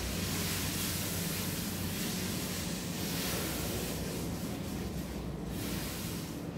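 Steady hiss of food cooking in a pan on a gas stove as it is stirred, over a low hum; the hiss thins out briefly about four to five seconds in.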